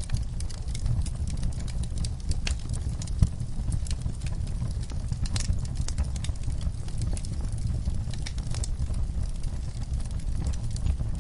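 Wood fire burning in a fireplace: a steady low rumble of flames with irregular crackles and snaps from the burning logs, one sharper pop about three seconds in.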